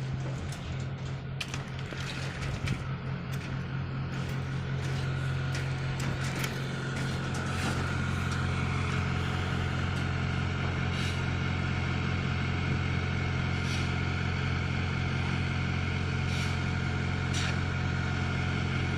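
A concrete pump's engine running steadily, with scattered sharp clicks and knocks. The running gets a little louder over the first several seconds, then holds steady.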